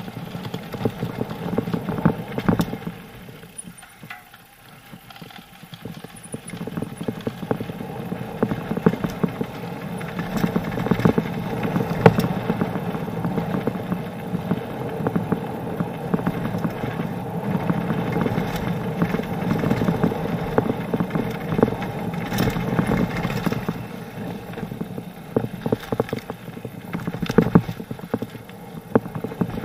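Mountain bike tyres rolling fast over a gravel trail, with the bike rattling and knocking over bumps throughout. The rolling noise drops off for a couple of seconds about four seconds in, then picks up again.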